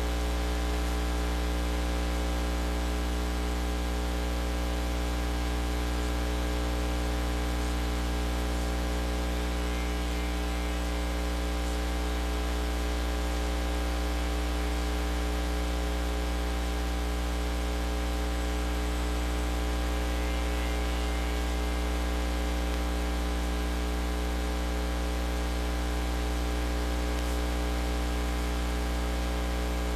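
Steady electrical mains hum with a stack of overtones under a constant hiss, unchanging throughout: the noise of the audio chain, with no other sound on the track.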